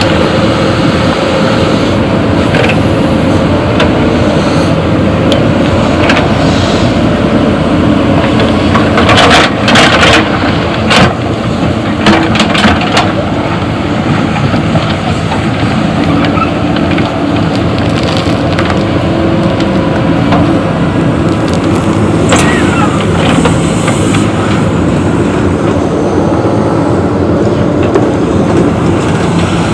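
JCB backhoe loader's diesel engine running steadily under load, with a cluster of loud clanks and knocks about nine to thirteen seconds in and a few more near the end of the second third, as of gravel and the steel bucket striking the dump truck's body.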